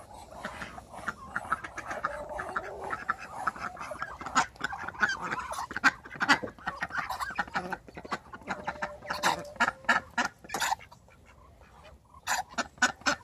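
Flock of Muscovy ducks and chickens chattering: overlapping soft calls and clucks mixed with many short sharp clicks. The calls drop away briefly about eleven seconds in, then pick up again near the end.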